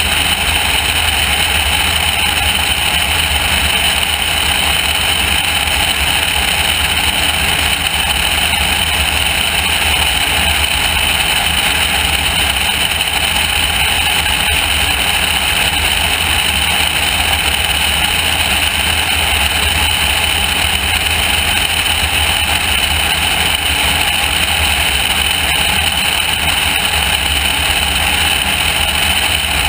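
Loud, steady wind rush on a camera mounted outside a high-wing light aircraft in cruising flight, over the even drone of its piston engine.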